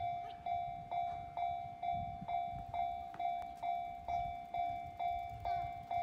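Japanese railway level-crossing warning bell starting up: an electronic bell striking one ringing tone about twice a second, each stroke fading before the next, the signal that a train is approaching and the barriers are coming down.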